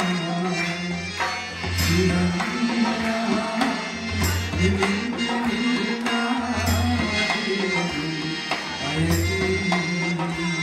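Live band music with hand drums and cymbal strikes about once a second over a steady bass line, likely the opening of a Sinhala song.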